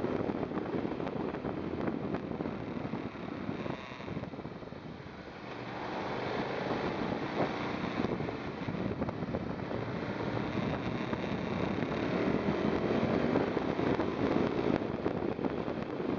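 KTM 990 SMT motorcycle's V-twin engine running at speed, mixed with wind buffeting the microphone. Around four seconds in the sound drops off briefly, then builds again as the bike picks up speed.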